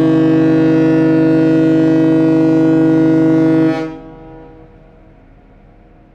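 Ship horn sounding one long, steady, deep blast with many overtones, cutting off about three and a half seconds in and leaving an echoing tail that fades away.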